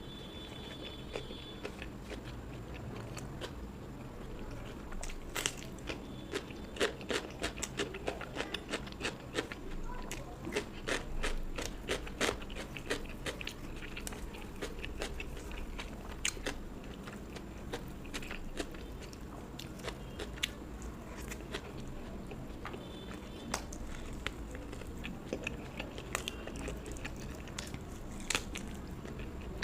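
A person chewing and crunching crisp fried food close to the microphone, with dense crackling crunches in the middle and slower, sparser bites later.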